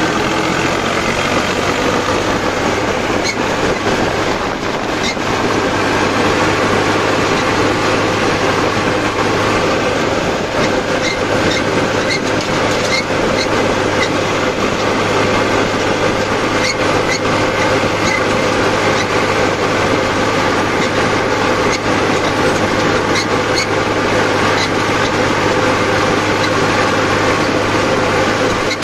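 Sonalika DI 750 tractor's diesel engine running steadily as the tractor drives at speed, with loose metal rattling and clanking at irregular moments over the road.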